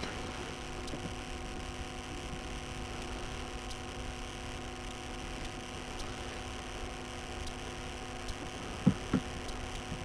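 A steady hum of several held tones, with two short soft knocks near the end.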